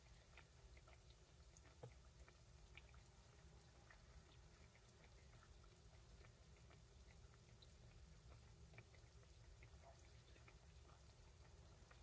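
Faint crackling of donuts frying in a pot of hot oil: scattered small pops over a low hum, with a soft knock about two seconds in.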